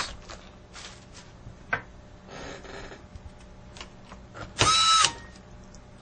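Electric screwdriver driving a laptop keyboard screw back in: small handling clicks, then a short steady whine of the motor lasting about half a second, a little before the end.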